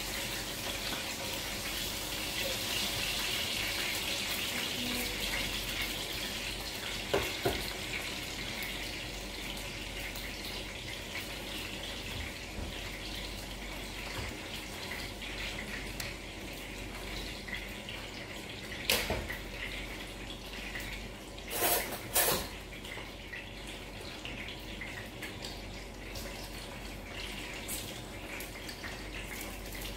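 Steady hiss of kitchen background with a few sharp clinks of kitchenware being handled: one about seven seconds in, then a cluster of three between about nineteen and twenty-two seconds.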